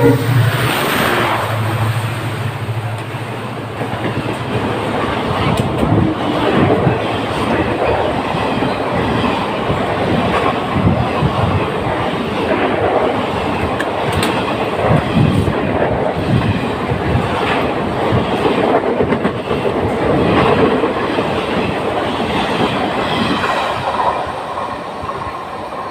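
Express passenger train passing at speed. A low drone from the WDP4D's EMD diesel engine is heard in the first two seconds, then a long rake of ICF coaches clatters over the rail joints in a continuous clickety-clack, easing off near the end.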